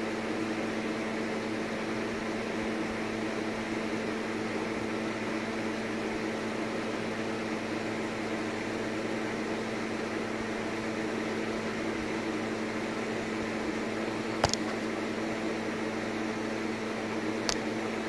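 A steady machine hum over a hiss, with two sharp clicks near the end, about three seconds apart.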